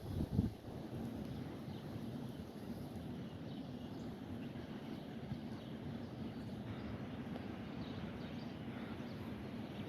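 Heavy equipment engine running steadily at a distance as a low rumble, with a brief low bump about half a second in.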